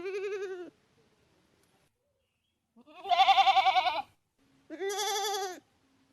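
Goat bleating three times, each call with a quavering pitch; the second, about three seconds in, is the longest and loudest.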